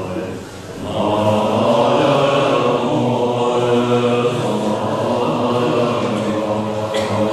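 Tibetan Buddhist monks chanting together in unison with long held notes, dipping briefly just under a second in before the voices swell back up.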